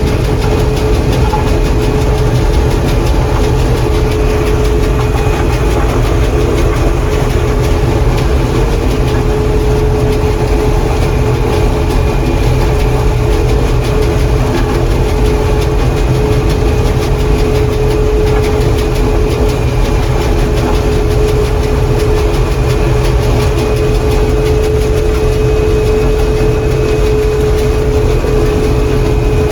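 John Deere 4400 combine running steadily, heard from inside the cab: a constant machine drone with a deep rumble and a steady whine over it.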